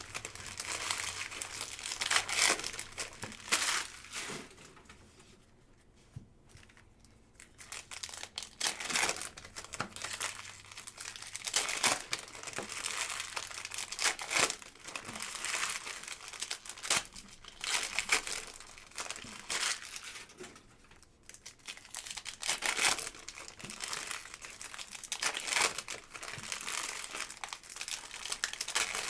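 Crinkling and tearing of the plastic wrappers on a hobby box of football trading cards as the packs are torn open and handled, in irregular rustling spells with short lulls.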